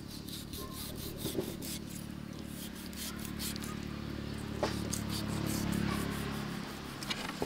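Kitchen knife scraping and slicing through raw fish against a wooden chopping board, in repeated short rasping strokes. Under it runs a low steady hum that grows louder past the middle.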